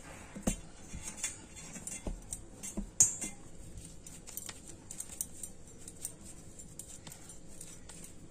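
Scattered light clinks and taps on a steel plate as soft dough is pressed, kneaded and pinched on it, with one sharper clink about three seconds in.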